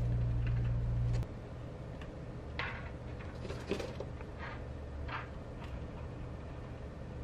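A low steady hum that cuts off about a second in, then a few faint clicks and scrapes as needle-nose pliers twist the metal tabs holding a gauge's plastic cradle to its circuit board.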